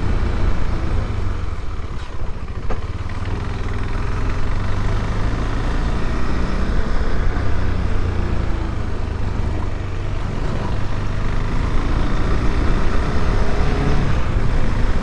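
KTM 390 Adventure's single-cylinder engine running under way, heard from the bike; its note eases off twice and then builds again.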